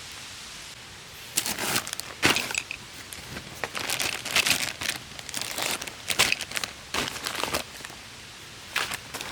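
Irregular crinkling and rustling handling noises in short bursts of uneven length, starting about a second in.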